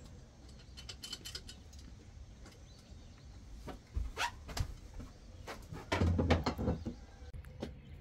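Scattered clicks and knocks of hands and tools handling the dinghy and its parts as a repair begins, with a louder cluster of knocks about six seconds in.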